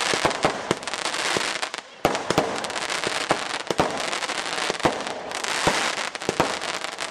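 Fireworks display: rapid crackling and popping with many sharp bangs, thinning briefly about two seconds in before starting again.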